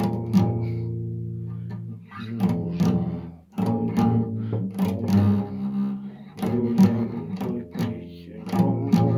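Instrumental song intro: strummed guitar chords over sustained low bass notes, with short breaks between phrases.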